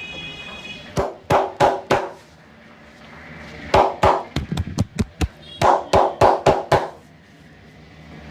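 A barber's hands slapping and tapping rhythmically on a customer's head and body during a massage: about four sharp smacks, then a fast run of a dozen or so, then about six more.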